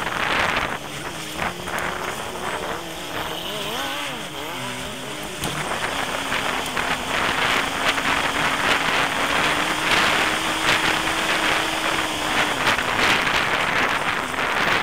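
A four-wheel drive's engine, heard from inside the vehicle while crawling over a rocky bush track. Its pitch rises and falls for the first few seconds, then holds steady, under constant rattling and knocking from the rough ride.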